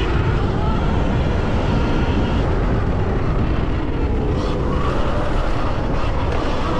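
Onboard sound of a stock Sur Ron X electric dirt bike racing over a motocross track: loud, steady wind and tyre-on-dirt rumble, with a whine that rises and falls in pitch as the bike speeds up and slows.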